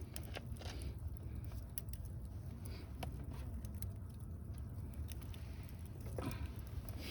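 Wood campfire crackling, with scattered small pops and ticks over a low steady rumble.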